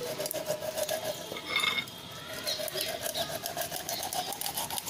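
Knife cutting and scraping through the skin of a large fish on a concrete floor: many small quick clicks and scrapes. A steady, slightly wavering tone runs under it and stops near the end, and a few brief high chirps come in about a second and a half in and again later.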